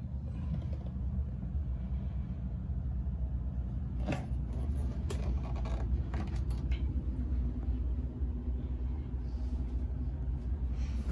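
Steady low rumble of machinery running aboard a boat, with a few short knocks and clicks about four to seven seconds in.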